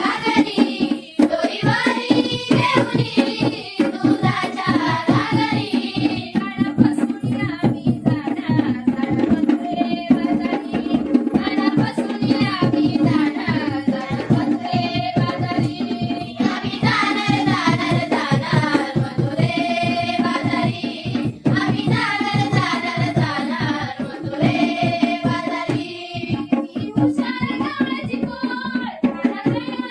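Konkan folk song: sung melody over a fast, steady hand-drum beat.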